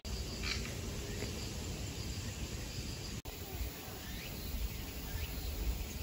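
Outdoor natural ambience: insects trilling steadily at a high pitch over a low rumble, with a couple of brief high chirps near the start. The sound changes abruptly about three seconds in.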